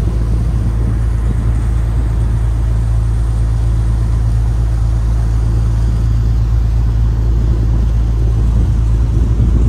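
Sightseeing boat's engine and propeller running under way: a steady low drone that holds constant.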